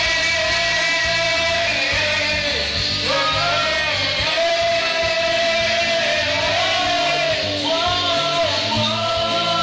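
Rock band playing live, with a lead vocal singing a held, wavering melody over guitar and drums.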